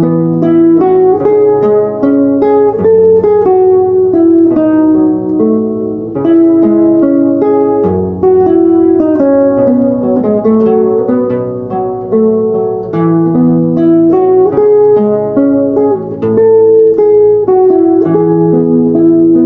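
Solo guitar playing a fingerpicked arrangement of a slow ballad: a melody of single plucked notes over ringing bass notes.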